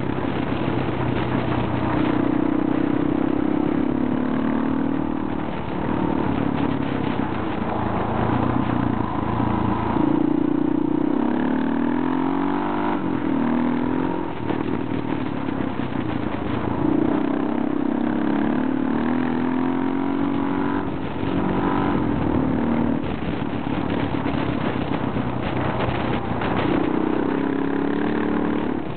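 Motorcycle engine running under way, its pitch rising and falling several times as the bike speeds up, changes gear and eases off.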